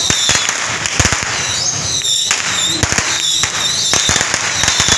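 Firecrackers going off in quick, irregular bangs, loud and dense throughout.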